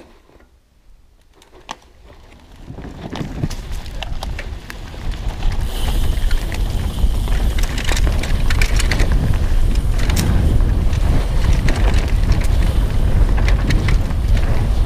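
Wind buffeting a helmet- or bike-mounted GoPro as a mountain bike picks up speed down a dirt trail, with the bike's chain and frame rattling and knocking over bumps. Quiet at first, the rumble builds from about two seconds in and is loud and steady from about five seconds on.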